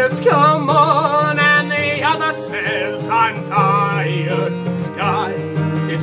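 A man singing with vibrato, accompanying himself on an acoustic guitar.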